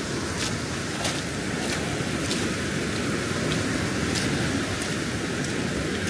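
Ocean surf and wind making a steady low wash, with the walker's footsteps as short sharp ticks about every 0.6 s.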